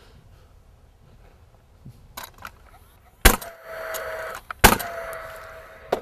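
Paslode cordless gas nail gun firing twice into pressure-treated lumber, two sharp shots about a second and a half apart. Each shot is followed by the tool's fan whirring for about a second and fading. A few light knocks come before the first shot.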